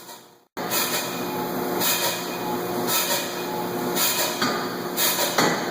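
Air-driven Chambersburg forging hammer plant running: a steady mechanical hum with a burst of air hiss about once a second. The sound cuts out briefly just after the start.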